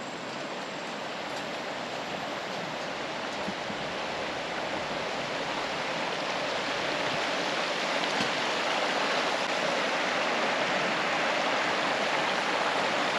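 Running stream: a steady noise of flowing water that grows gradually louder.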